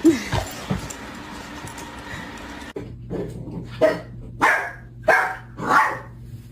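A dog barking, about five barks spaced a little over half a second apart in the second half, over a steady low hum.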